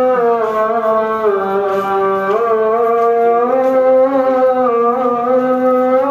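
Background music: a single sustained instrumental tone that slides slowly down in pitch and back up without a break.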